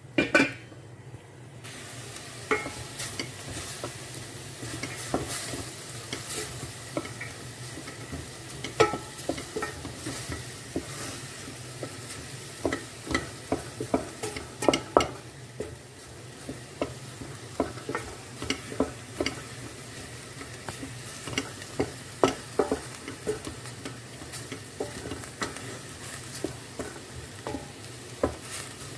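A spoon stirring chopped red onions in a metal pot, with irregular clicks and scrapes against the pot over a steady sizzle. The onions are cooking dry, without oil yet, as the first stage of doro wat.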